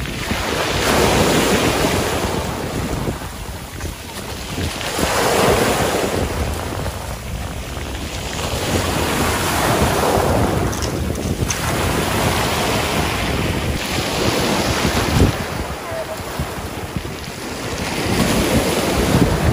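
Small waves breaking and washing back over a shingle beach, the surf swelling and falling away roughly every four seconds, with wind buffeting the microphone.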